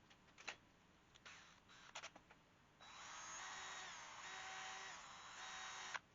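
A few light clicks, then a small power drill running for about three seconds, drilling the pilot holes for a T-nut's teeth. Its whine dips in pitch twice, and it cuts off suddenly.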